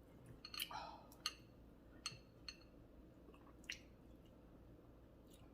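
Wet mouth sounds of a person eating: a handful of soft, sharp clicks and smacks spread across a few seconds over a quiet background.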